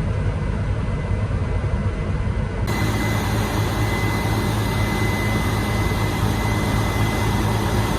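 Combine harvester running steadily while it unloads grain. About three seconds in, the sound abruptly turns louder and brighter, with a steady high whine over the machinery.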